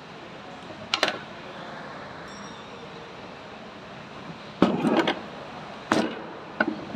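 Metal knocks and clatter from handling a truck starter motor and a hand tool on a workbench: one knock about a second in, a short run of clattering near the five-second mark, then two more knocks as the starter is set down upright.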